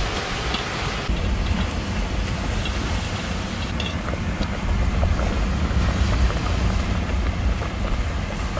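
Wind buffeting the microphone: a steady, rough low rumble with a hiss above it, picking up about a second in.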